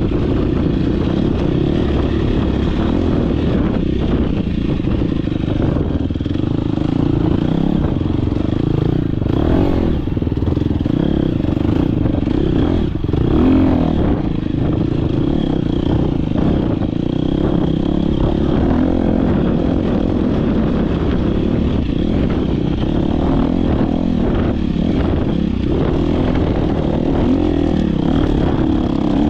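Dirt bike engine running hard at racing pace, heard close from the onboard camera, its pitch rising and falling with the throttle, over clatter and scraping from riding rough ground.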